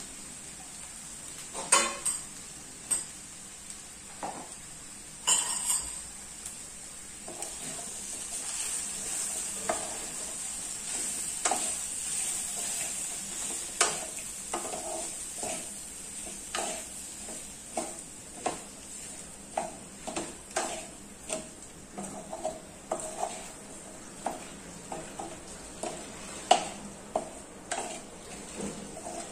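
Wooden spatula stirring and tossing boiled rice-ball pieces through spiced oil in an aluminium kadai: a steady sizzle with repeated knocks and scrapes of the spatula against the pan, about one to two a second in the second half. Two louder clatters come about two and five seconds in.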